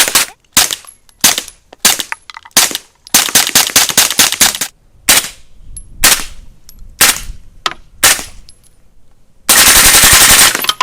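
Suppressed 9mm machine gun wearing a titanium AB Suppressor F4 Phantom, firing single shots and short bursts. It ends with one long full-auto burst near the end.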